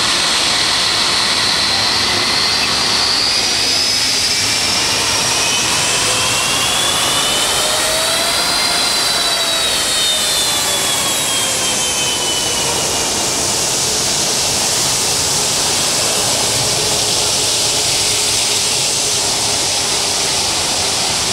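Turbofan engines of a twin-engine jet airliner running on the ground: a steady rushing jet noise with a high fan whine that rises in pitch and falls again about halfway through.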